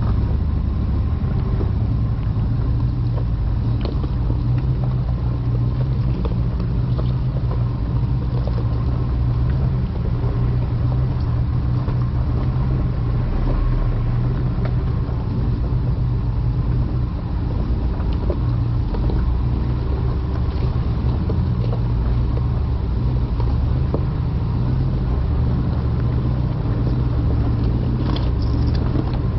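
2021 Ram 1500 TRX's supercharged 6.2-litre V8 running steadily at low revs as the truck crawls over a rocky trail, with a few faint clicks of stones under the tyres.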